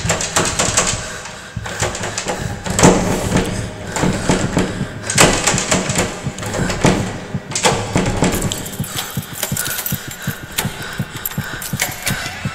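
Experimental sound-design track of dense clicking and knocking, with a noisy swell rising about every two and a half seconds; after about eight seconds the clicks turn faster and denser.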